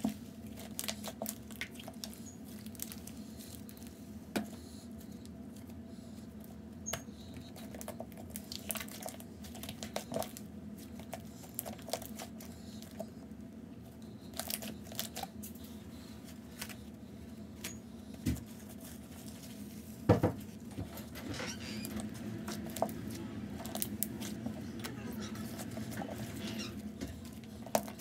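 Hands kneading, folding and stretching blue slime with toilet paper mixed in: irregular sticky clicks, crackles and squishes, with one louder snap about two-thirds of the way through.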